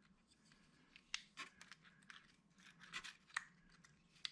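Faint clicks and scrapes of metal stapler parts being handled and fitted back into a DuoFast stapler body during reassembly, with the sharpest ticks about three seconds in.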